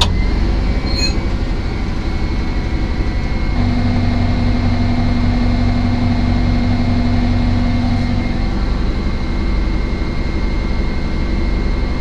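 CAT D11 bulldozer's diesel engine running steadily, heard from inside the cab, held under load in gear against the torque converter to warm it up. A steady whine joins the drone about three and a half seconds in and fades out near eight seconds.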